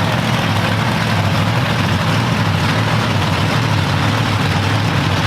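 Monster truck engine running loudly and steadily at idle, a deep even drone with no revving.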